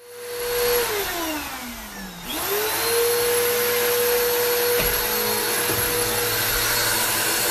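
Vacuum cleaner running loudly. Its motor whine slides down in pitch over about two seconds, then swings back up and holds steady, with a couple of light knocks later on.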